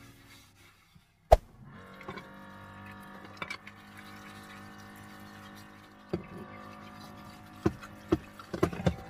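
Water being poured or running, with one sharp loud click a little over a second in and several knocks near the end.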